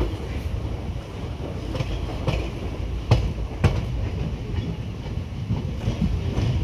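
Passenger train coach running along the track, heard from aboard: a steady low rumble of the wheels with clickety-clack over the rail joints, the two loudest clacks about three seconds in, half a second apart.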